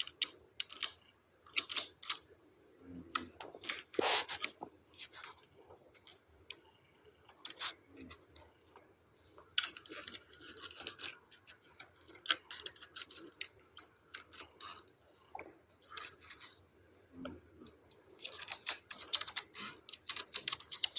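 Computer keyboard being typed on: irregular runs of key clicks with short pauses, and a fast, dense flurry of keystrokes near the end.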